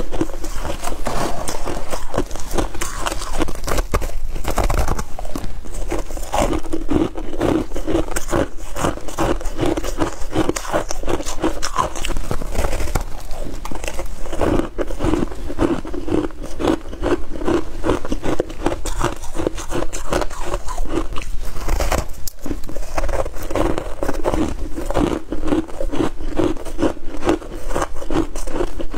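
Freezer frost being bitten and chewed close to a clip-on microphone: a dense, continuous crunching of the packed frost.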